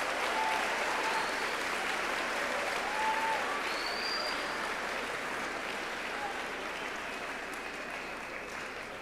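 An audience applauding in a large gym hall, with a few voices calling out over the clapping; the applause slowly fades.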